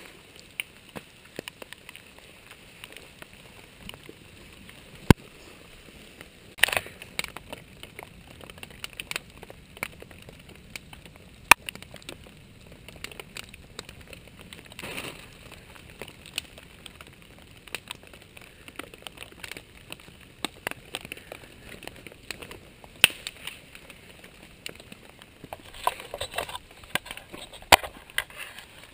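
Wood campfire crackling, with scattered sharp pops over a steady low hiss.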